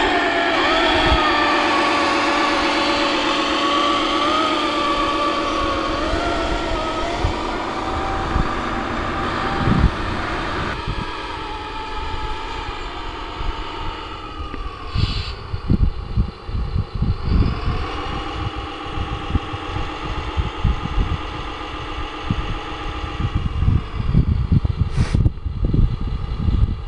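Radio-controlled Peterbilt model truck's electric drive whining, its pitch wavering up and down with speed, loud at first and then fading as the truck moves off. In the second half, irregular low buffeting of wind on the microphone becomes the loudest sound.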